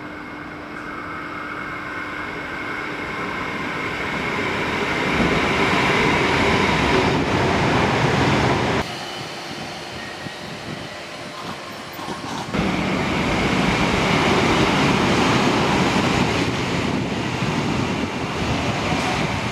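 Adelaide Metro 4000 class electric trains running through the station without stopping. The rumble and rush of an approaching train grows louder over the first few seconds into a loud pass. It cuts off suddenly to a quieter approach, then jumps back to another loud close pass near the platform.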